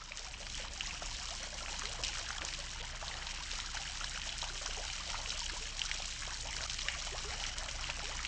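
Water from a small pump-driven garden fountain, trickling and splashing steadily with many small droplet patters.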